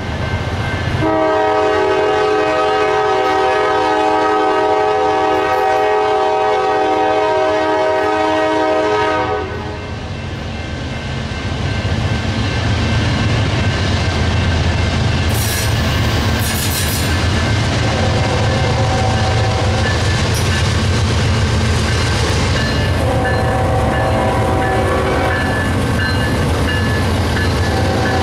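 Diesel freight locomotive's air horn blowing one long chord of about eight seconds, then the heavy rumble of the train rolling past, broken by two shorter, fainter horn blasts.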